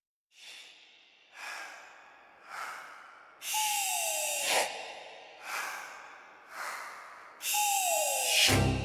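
Rhythmic breath-like hissing: three short puffs about a second apart, then a longer, louder hiss with a tone falling in pitch through it. The pattern is heard twice.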